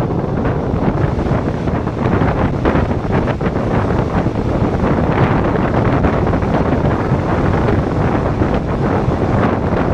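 Express train running with a steady rumble and irregular clatter, heavily mixed with wind buffeting the microphone.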